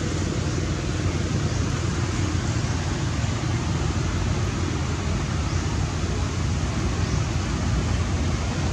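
Steady outdoor background rumble with hiss, unchanging throughout, with no distinct events standing out.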